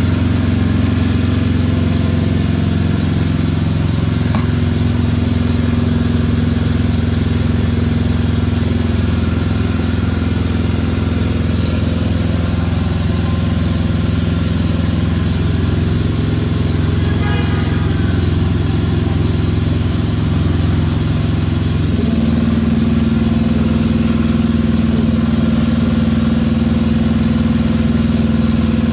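A motor engine running steadily, its hum shifting slightly in pitch a few times.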